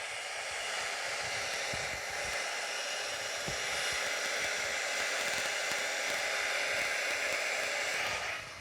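Hair dryer blowing steadily, pushing the poured acrylic paint outward to open a bloom. It cuts off near the end.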